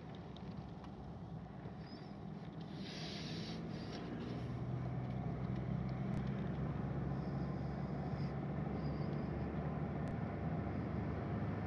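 Car engine and tyre noise heard from inside the cabin while driving, a steady low hum that grows louder over the first few seconds and then holds.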